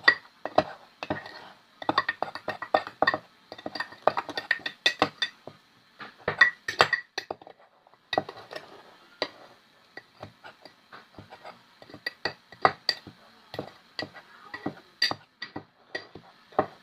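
A spoon stirring a dry mix of flour, cocoa and sugar in a mug, clinking rapidly and irregularly against the mug's sides and bottom, softer for a few seconds past the middle.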